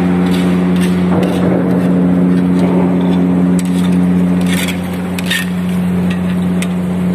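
Steady low machinery drone of the ship's equipment, with metal clinks and scraping about halfway through as a metal rod works the perforated steel cover of a bilge-well strainer.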